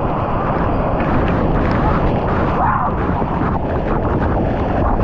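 Steady, loud rushing of waterfall water, with a brief call about two and a half seconds in.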